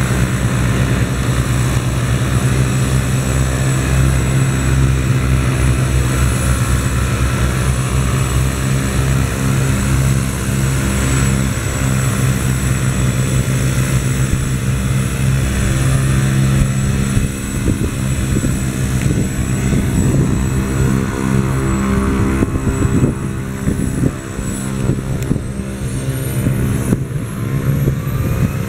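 Hughes 500 (MD 500) helicopter running with its rotor turning, a steady turbine whine over the beat of the rotor blades. The rotor beat grows choppier in the second half. Near the end the turbine whine rises as power comes up and the helicopter lifts into a hover.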